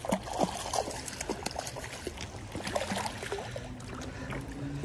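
Creek water trickling over rocks, with a hooked brown trout splashing at the surface close by: a string of short plops and gurgles over the running water.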